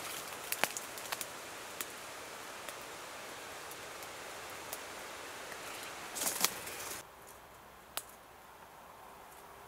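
Outdoor ambience of a steady hiss with scattered light crackles and ticks, typical of dry pine needles and twigs being stirred, and a brief louder rustle about six seconds in. The background hiss drops off abruptly about seven seconds in.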